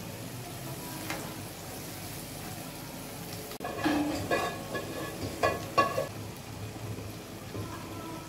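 Chana dal sizzling in ghee-rich masala in a frying pan, steady at first. After a sudden break about three and a half seconds in, a spoon stirs and scrapes the pan in a quick run of strokes.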